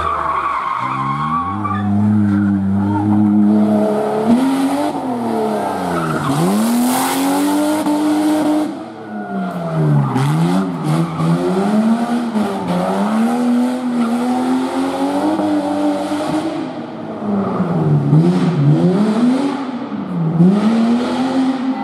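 A slalom competition car's engine being revved hard and backed off again and again, its pitch rising and falling every couple of seconds as the car accelerates and brakes between the cones. Tyres squeal as the car slides through a turn about a quarter of the way in.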